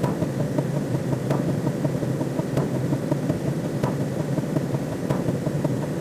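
A steady, low rumbling drone of synthetic sound effects, with a faint click about every 1.3 seconds.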